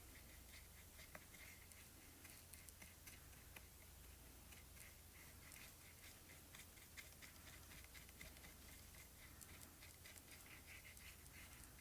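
Faint scratching of a watercolour marker tip on paper, in many short quick strokes that grow busier in the second half, over a low steady hum.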